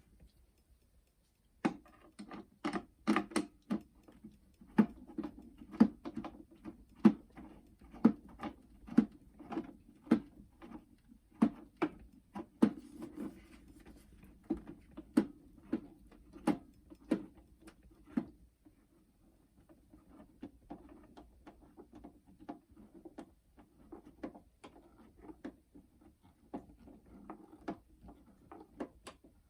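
Hand screwdriver driving a screw into a plastic boombox case: a long run of irregular clicks, about one or two a second, over a low rubbing. There is a short lull about two-thirds of the way through.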